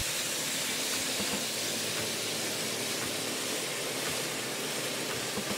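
Steady hiss of high-pressure water-jet nozzles cutting heads of celery on a conveyor.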